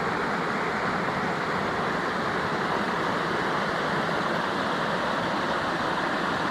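River water rushing steadily over rocks, an even continuous noise.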